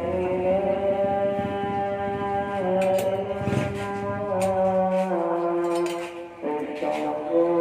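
Background music: long held chords that change every second or two, with a few light hits in the middle.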